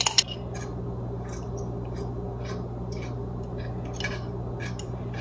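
Kitchen utensils against a dish: a quick pair of sharp clinks at the start, then scattered light ticks and taps, over a steady low hum.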